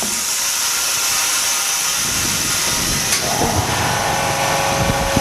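Compressed air hissing steadily into an autoclave bubble-removal machine as it pressurises. A steady mechanical hum with a low rumble joins about three seconds in.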